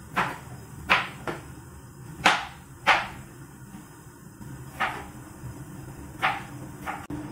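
Kitchen knife chopping down onto a cutting board: about seven single, sharp chops, irregularly spaced, the loudest around two to three seconds in.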